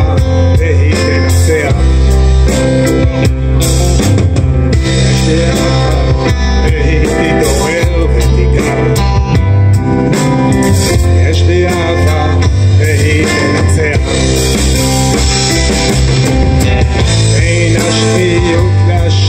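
Live rock band playing loudly through a PA: electric guitars, drum kit and keyboard.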